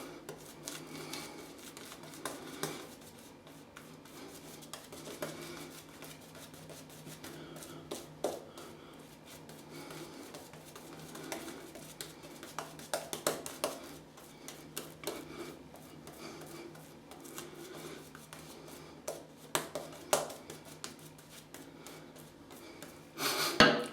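Badger shaving brush painting lather onto the face: soft, scratchy brushing with small clicks and ticks. A louder rush like running water starts just before the end.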